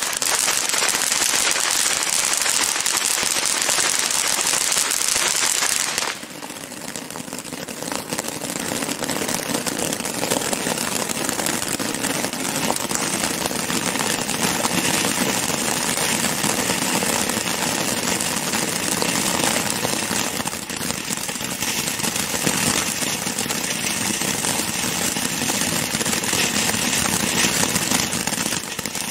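Firework ground fountains spraying sparks with a steady hiss and crackle. The sound drops sharply about six seconds in as one fountain ends, then builds again as the next burns with a rattling crackle.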